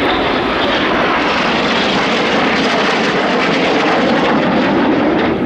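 Jet noise from Red Arrows BAE Hawk T1 aircraft making a pass, a loud steady rush that swells in at the start and holds. Its pitch sinks slightly near the end as the aircraft go by.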